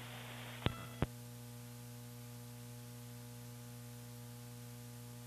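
Steady electrical hum with hiss on the launch-commentary audio line, between announcements. Two short clicks come about a third of a second apart, just under a second in.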